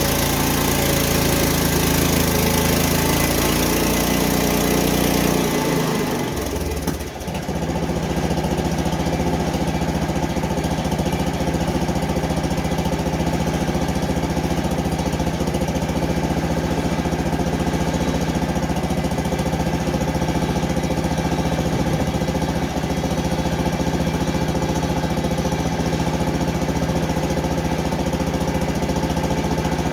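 Portable bandsaw sawmill with a small gasoline engine (about 7 horsepower) cutting through a pine log, its engine running under load with a hissing blade sound; around six to seven seconds in the blade leaves the cut and the engine runs on steadily, with no hiss.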